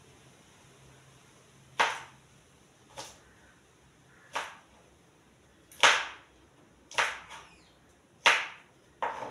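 Kitchen knife chopping vegetables on a plastic cutting board: about seven separate sharp chops, spaced irregularly about a second apart.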